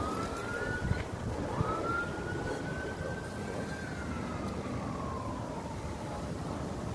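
Siren wailing: a short rising tone at the start, then a long tone that climbs, holds and slides down in pitch about four seconds in, over a steady low rumble. A couple of light knocks sound in the first two seconds.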